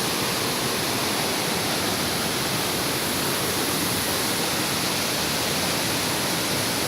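Waterfall close by: a steady, even rush of falling water, near enough that its spray drifts over.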